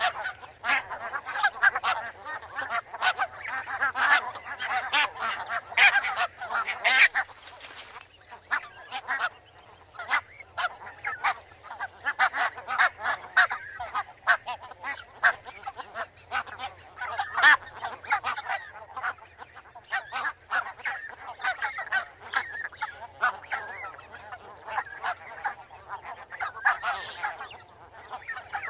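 A flock of barnacle geese calling: many short, overlapping yapping honks in quick succession, thickest in the first several seconds.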